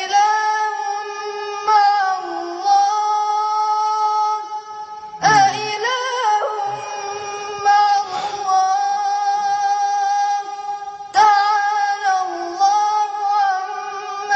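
A boy's solo voice chanting in long, held, ornamented phrases with no instruments heard. New phrases start about two, five and eleven seconds in.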